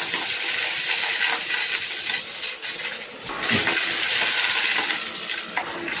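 Dyson V11 cordless stick vacuum running over carpet, sucking up broken dry pasta, the hard pieces rattling and clinking as they are drawn up into the machine. The noise eases briefly a little past halfway, then comes back up.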